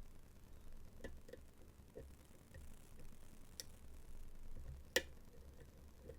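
Faint, scattered small metallic clicks of a dimple lock pick working the pins of an AZBE HSK high-security dimple lock under tension, with a sharper click about five seconds in.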